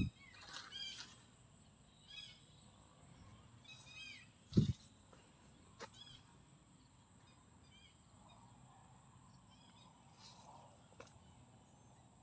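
Faint, short chirping animal calls, repeated every second or two. Two dull thumps, one at the start and a louder one about four and a half seconds in.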